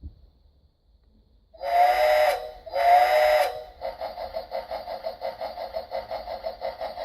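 Novelty steam-locomotive telephone playing its electronic train sound effect: two steam-whistle toots, each about a second long and dipping in pitch at the end, then a fast, steady chuff-chuff rhythm.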